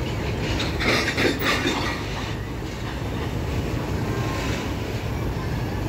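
Loaded freight train of open wagons rolling past, a steady low rumble of wheels on rail. About a second in comes a louder burst of metallic clatter.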